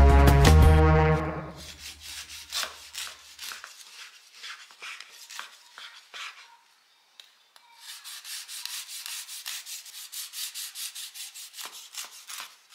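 Background music fading out, then a knife sawing through a freshly baked banana bread loaf with short rasping strokes, uneven at first and then faster and steadier after a brief pause.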